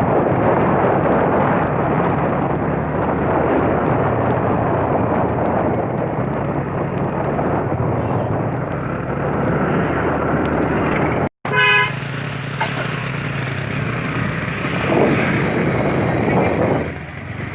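Street traffic with a vehicle engine running under a steady rush of road noise. There is a brief dropout about eleven seconds in, followed by a short vehicle horn honk.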